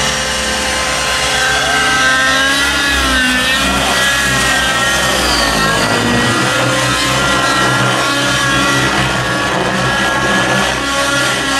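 Two radio-controlled aerobatic helicopters flying, their motors and rotors making a steady whine that rises and falls in pitch as they manoeuvre.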